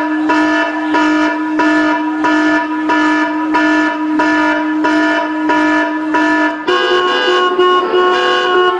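Vehicle horn blaring, one held tone pulsing about twice a second, stepping up to a slightly higher pitch near the end.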